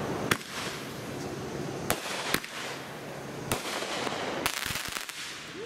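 Consumer aerial fireworks going off: about six sharp bangs at uneven intervals over a steady background hiss.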